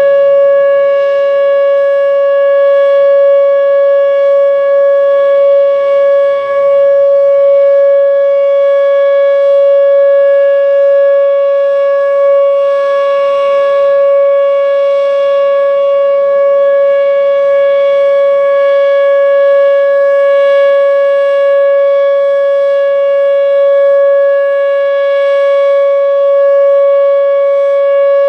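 Whelen WPS-2807 electronic outdoor warning siren sounding its steady 560 Hz Alert tone, the tornado-warning signal, here run as a scheduled test. It holds one unbroken pitch with overtones, loud and constant throughout.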